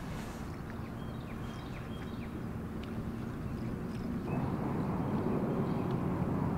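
Boat motor running steadily with a low hum, getting louder about four seconds in.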